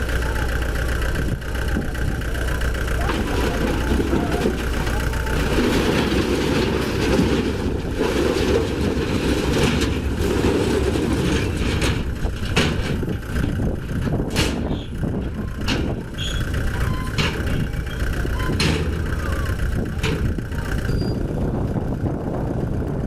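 Heavy construction machinery's engine running steadily, with a series of sharp knocks and clanks through the second half.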